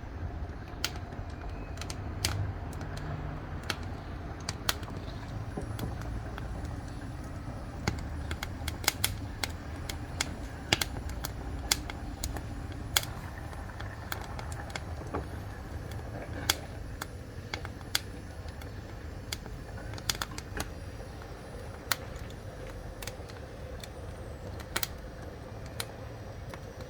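Wood fire burning in a wood-fired cook stove: irregular sharp crackles and pops over a low, steady rumble.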